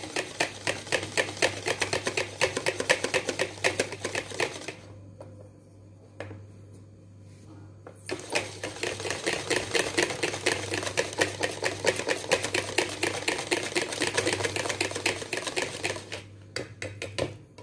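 Wire whisk beating egg-and-milk batter hard in a plastic bowl: a fast, even run of clicking strokes against the bowl, which stops for about three seconds around five seconds in and then starts again.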